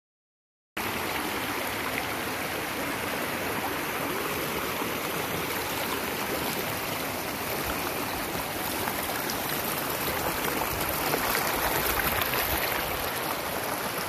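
Shallow creek water rippling and rushing over a flat rock bed: a steady watery noise that starts suddenly about a second in and grows a little louder near the end.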